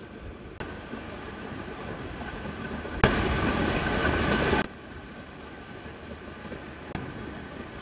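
Chicken in soy-based sauce simmering in a steel frying pan on a gas stove: a steady bubbling hiss. About three seconds in, a much louder burst of sizzling hiss cuts in and stops abruptly after about a second and a half.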